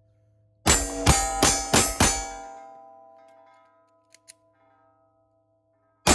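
Five pistol shots in quick succession, about a third of a second apart, each hit ringing a steel target plate with a bell-like ring that fades over about two seconds. Another shot comes right at the end.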